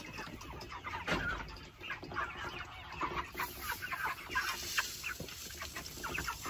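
A flock of young white chickens clucking, with many short, overlapping calls. From about halfway through, feed pours with a hiss from a metal pail into their feeder.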